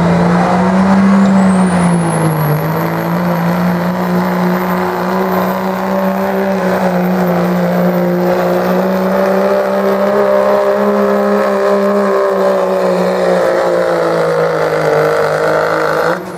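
Diesel pickup engine under full throttle, hauling a truck-pull sled, with a high whistle that climbs over the first few seconds and then holds. The engine note stays steady, sags slightly about two seconds in, and cuts off abruptly near the end as the pull finishes.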